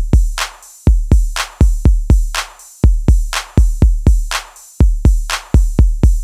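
Background music: a drum-machine beat with deep, long-ringing bass kicks and a sharp snare-like hit about once a second.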